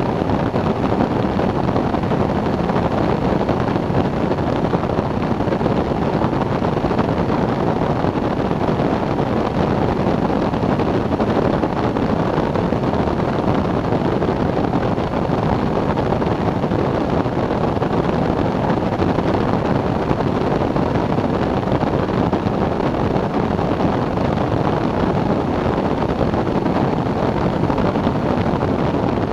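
Microlight trike in cruise: a steady rush of airflow on the wing-mounted microphone, mixed with the drone of the engine and pusher propeller, unchanging throughout.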